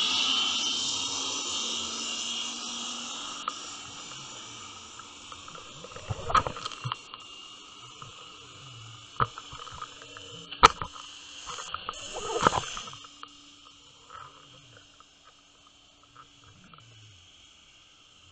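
Underwater camera sound: a steady water hiss that fades over the first few seconds, with a handful of short knocks and clicks about six, nine, ten and a half and twelve and a half seconds in, the one near ten and a half seconds the sharpest.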